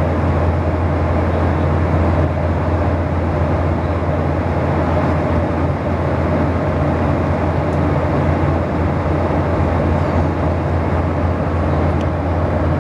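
Airliner cabin noise in cruise: a steady low hum with an even rushing of engine and airflow noise, heard from inside the cabin.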